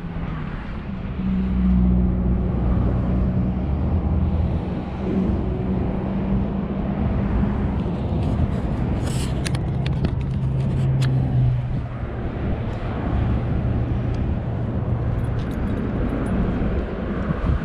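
An engine running steadily, its hum dropping to a lower pitch about halfway through, with a few sharp clicks in the middle.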